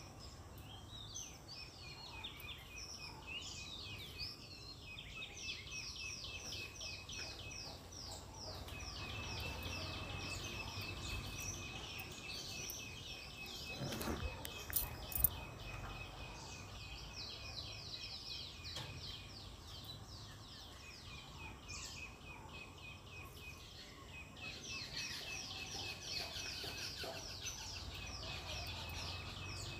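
Birds singing outdoors: long runs of rapid high chirps, each sliding down in pitch, over a thin steady high note. There is a brief knock about halfway through.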